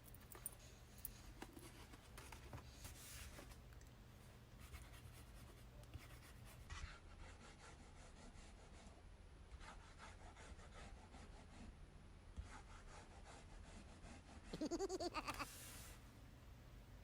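Faint, scattered scratching and rubbing of paper, like a pen writing in a diary or pages being handled. About fifteen seconds in comes a short, louder pitched sound, about a second long, whose pitch wavers.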